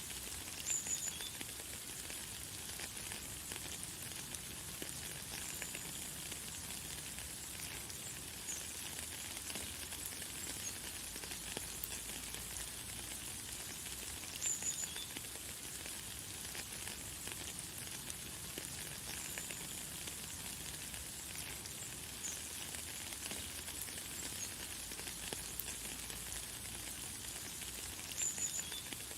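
Light, fine rain falling steadily as a soft, even hiss. A bird gives short, high chirps a few times, most clearly about a second in, midway and near the end.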